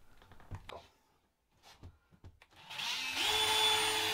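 DeWalt cordless drill/driver spinning up about two-thirds of the way in, rising in speed as it starts, then running steadily. A few light clicks and handling knocks come before it.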